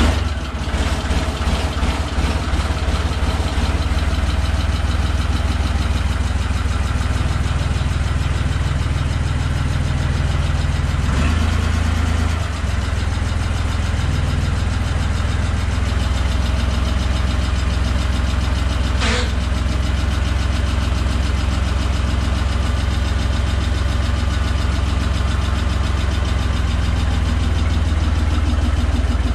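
Holder A45 tractor's diesel engine idling steadily, freshly started, with one short click about two-thirds of the way through.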